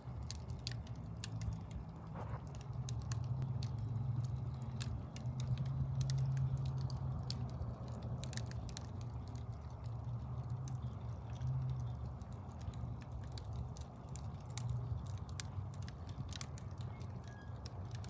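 Wood fire of logs on a grate in a fireplace, crackling with many sharp, irregular pops and snaps over a steady low rumble.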